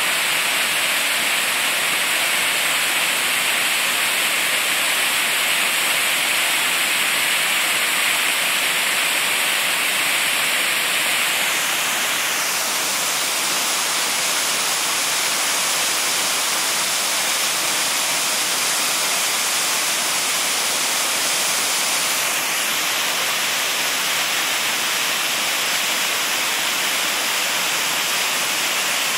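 Steady rushing of a tall waterfall, the falling water and its splash filling the sound with an even, unbroken hiss.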